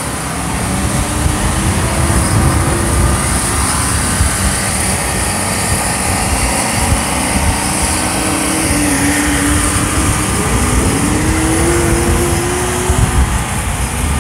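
The 1968 Chevrolet Camaro SS race car's 496 cubic-inch big-block V8 idling with an uneven, loping low beat, its pitch wandering a little.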